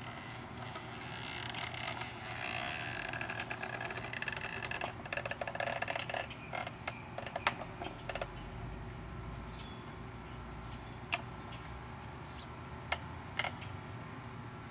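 Wooden model trebuchet being cocked by hand: creaking and rattling as its throwing arm is pulled down and the counterweight lifted, followed by a few sharp clicks and knocks as the sling is set.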